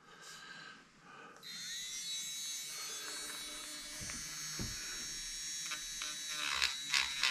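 Handheld mini rotary tool (engraver) spinning up about a second and a half in with a quickly rising whine, then running at a steady high whine. Its small sanding bit is ground against the camera mount, with scraping ticks near the end.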